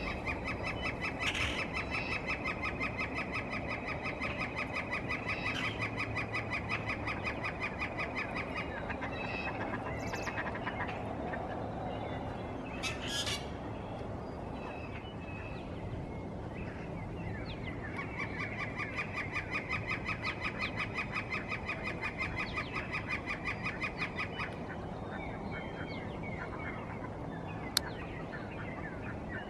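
Northern flicker giving its long territorial call: a rapid, even series of repeated notes held for about nine seconds, then a second series of about six seconds after a pause. A single sharp click near the end.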